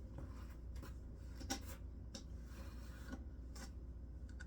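Light clicks, knocks and rubbing of the robot prop's parts being handled and fitted together, about half a dozen short clicks spread through, over a low steady hum.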